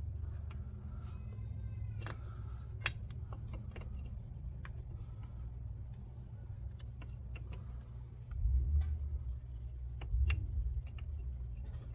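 Brake pads being handled and test-fitted: scattered light metallic clicks and clinks, one sharper click about three seconds in, over a steady low hum, with two duller low thumps later on.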